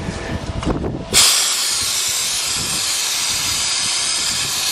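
Aerosol can of starting fluid sprayed in one long, steady hiss that starts abruptly about a second in. It is being used to get a non-starting Buick 3.8 engine to fire.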